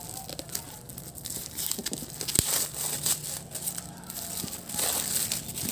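Plastic and paper wrapping of a triangular firecracker crinkling and tearing as it is peeled off by hand, in irregular crackly rustles with one sharp tap about two and a half seconds in.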